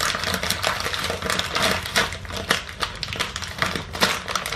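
Plastic food packet crinkling and crackling as it is handled, in dense irregular clicks.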